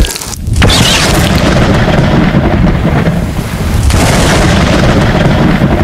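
Heavy downpour with a long rumble of thunder that eases slightly midway and swells again about four seconds in.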